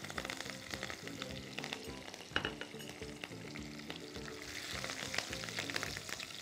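Chopped green chillies sizzling and crackling in hot oil with whole dried red chillies in a frying pan, stirred with a spatula.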